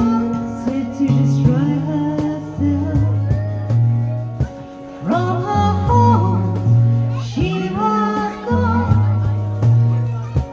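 Live folk band performing: sung vocals over strummed or plucked acoustic guitar and a sustained bass line.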